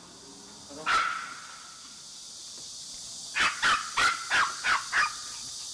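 Small Maltese dog barking: a single high yap about a second in, then a quick run of six high yaps about halfway through.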